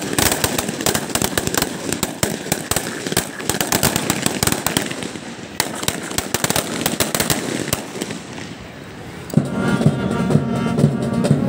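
Feu de joie (harsh fire) by a line of police rifles firing blank rounds skyward: a rapid crackling ripple of shots, then a second, shorter ripple about five and a half seconds in. Music starts near the end.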